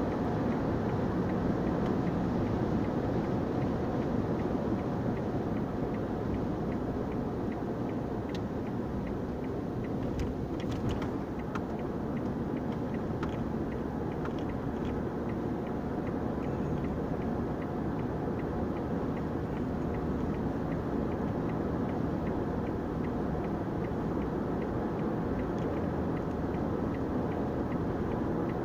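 Steady engine and tyre road noise heard inside a car's cabin while driving at highway speed, with a few faint clicks about ten seconds in.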